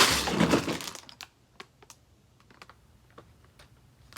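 A plastic LEGO parts bag rustles loudly for about a second. Then come scattered light clicks as small plastic LEGO pieces are handled and set down, about ten irregular taps.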